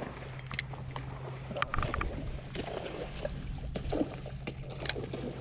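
Small fishing boat on the water: a steady low motor hum, with scattered sharp knocks and clicks of gear and tackle against the boat.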